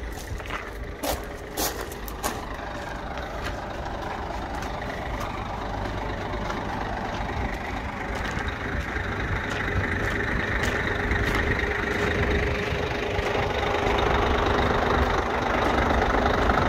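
A heavy diesel truck engine idling, growing steadily louder as it is approached. A few sharp footsteps crunch on gravel in the first two seconds.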